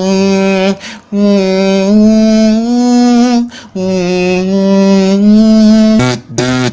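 A man's voice droning long held notes, each lasting about two seconds with a short break between, the pitch stepping slightly upward within each note; a mouth-made sound effect. Near the end it changes to a lower, choppier sound.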